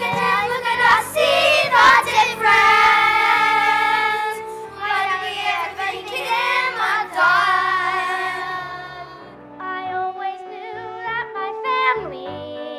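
Young cast singing a musical number with instrumental accompaniment, long held notes with vibrato; after about nine seconds the voices drop out and the accompaniment carries on more quietly.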